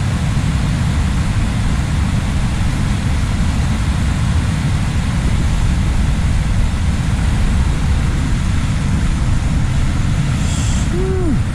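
Wind buffeting the microphone: a steady, loud low rumble with a hiss above it. A short high hiss comes near the end.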